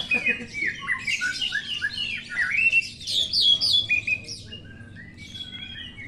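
Caged Oriental magpie-robins (kacer) singing, several birds overlapping in rapid, varied whistled and chattering notes. The song is densest in the first four seconds and thins out after.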